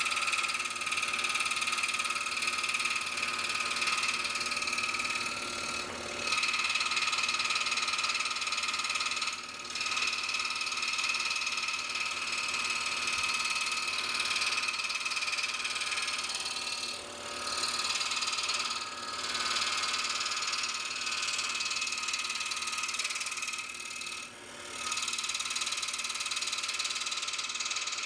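Scroll saw with a fine number 2 blade cutting thin brass sheet backed by wood: a steady, high mechanical buzz broken by a few brief pauses.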